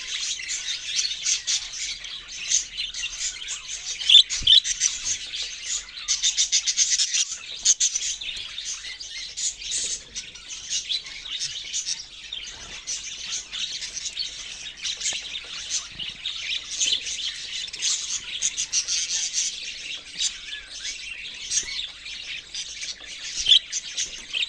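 Several budgerigars chirping and chattering without a break, with a few louder calls standing out.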